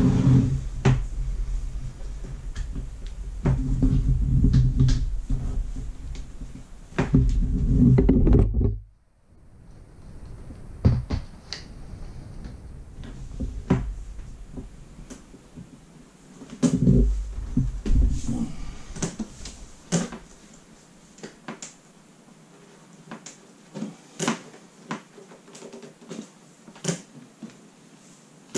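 Avid Carp Quick Up Session Organiser, a folding tackle organiser with hard panels, being handled and folded down: scattered clicks and knocks of its frame and panels, with bouts of heavy, low handling thumps in the first eight seconds and again about seventeen seconds in, then sparser, quieter clicks.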